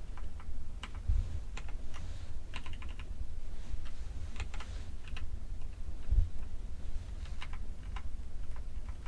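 Irregular keypresses on a mechanical keyboard fitted with pudding keycaps, scattered sharp clicks, some in quick pairs, over a steady low hum.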